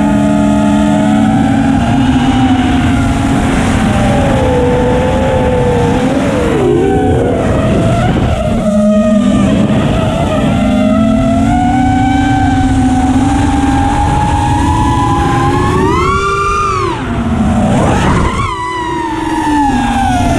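FPV racing quadcopter's brushless motors and propellers whining, the pitch rising and falling with the throttle. The whine drops briefly a couple of times, then swoops up and falls away again about sixteen seconds in.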